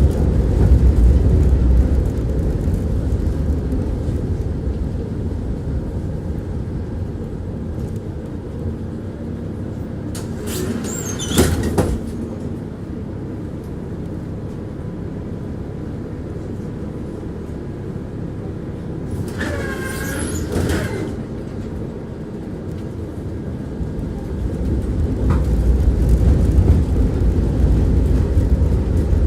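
Tram rumbling along the rails as heard from inside the car, wheels clattering steadily. It eases off in the middle and grows louder again near the end, with two brief high-pitched wheel or brake squeals, about eleven and twenty seconds in.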